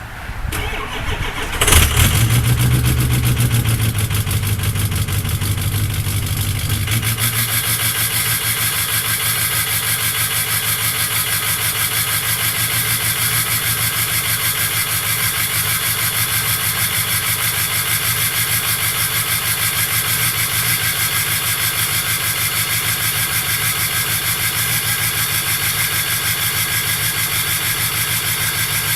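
Ford 6.0L Powerstroke V8 turbo diesel with an oversized Garrett turbo and a 4-inch exhaust, cranking briefly and catching with a loud burst about two seconds in. It then runs steadily at high idle. About seven seconds in the low rumble eases and a high, steady turbo whistle rides over the idle.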